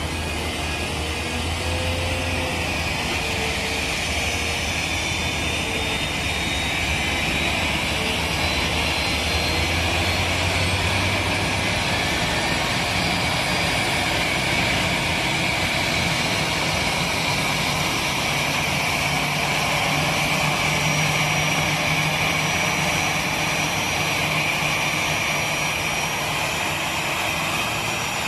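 Steady whine and rush of airliner jet noise at close range. A low hum underneath steps up in pitch about halfway through, and faint high whistles slowly rise.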